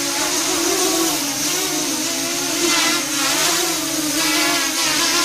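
OFM Swift TR260 tilt-rotor racing quadcopter's motors and propellers whining in flight. The pitch wavers up and down with quick throttle changes.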